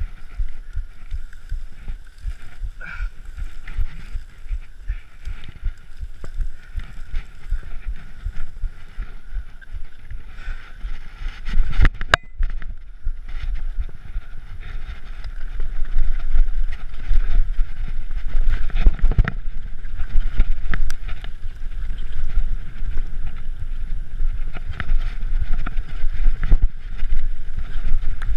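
Mountain bike ridden over rough, rocky ground: the bike rattling and knocking over stones, with wind rumbling on the microphone. A sharp knock comes a little before halfway, and the rattling grows louder in the second half.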